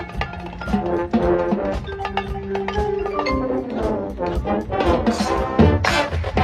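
Drum and bugle corps playing live: a brass hornline holding chords over front-ensemble marimbas and percussion, with a heavy full-ensemble hit near the end.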